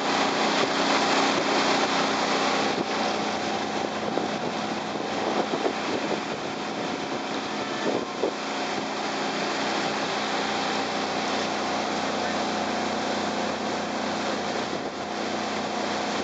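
Small speedboat's outboard motor running steadily at speed, a constant drone with a few held pitches, over the rush of water and spray along the hull and wind on the microphone.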